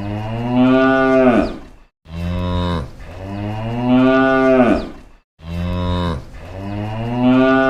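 A low, drawn-out call played three times over as an identical loop: each time a short held note, then a longer note that rises and falls.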